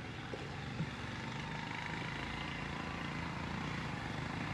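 Steady, even hum of a running vehicle engine, with a couple of small ticks about a second in.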